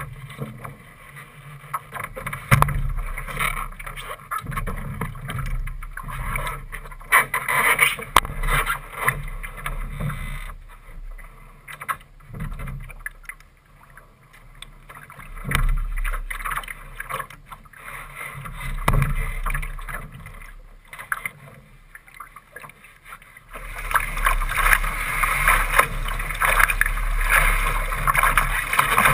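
Laser sailing dinghy heard from its bow deck: scattered knocks and water lapping while the boat is worked along the dock, then, from about 23 seconds in, a steady rush of water along the hull and wind as it sails away under way.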